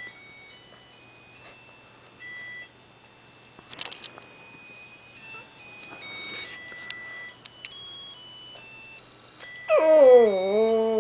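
A musical toy dog plays a simple electronic Christmas tune in plain, steady high notes. About a second before the end, a Shih Tzu breaks in with a loud, long howl, singing along to it.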